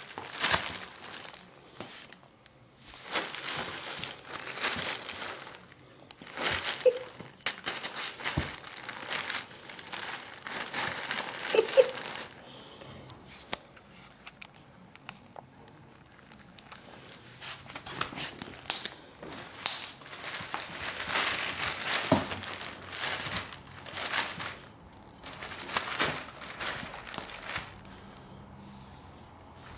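A cat moving around inside a shiny plastic bag, the plastic crinkling and rustling in bursts of a second or two, with a quieter stretch in the middle and another near the end.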